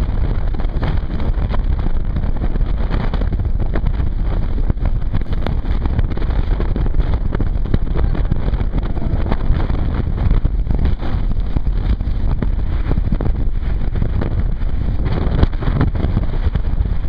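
Wind buffeting the microphone on a banana boat towed at speed, steady and heavy in the lows, with a motorboat's engine running under it.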